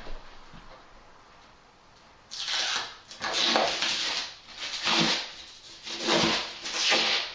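Protective plastic film being peeled and torn off the edges of a shower tray: about five short crackling rips in quick succession, starting about two seconds in.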